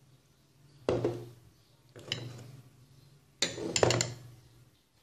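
Kitchen bowls and utensils knocking and clinking against a steel bowl and tabletop while mashed potatoes are being seasoned. The sound comes as three short clusters of knocks, about one, two and three and a half seconds in.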